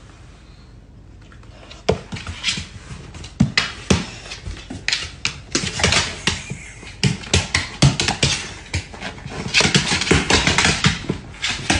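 A dog's paws and claws clattering and tapping on a hardwood floor as it paws and jumps about. It is quieter for the first two seconds, then comes as many quick, irregular taps and knocks.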